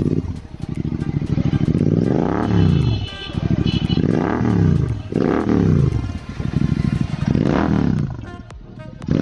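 Royal Enfield Interceptor 650 parallel-twin engine running through an RRP free-flow aftermarket exhaust with the dB killer removed. It idles between four quick throttle blips, each rev rising and falling back.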